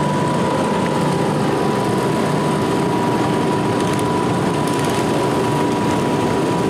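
Several small garden-tractor engines running as a line of garden tractors drives slowly past, a dense steady engine noise with a thin steady high-pitched tone over it.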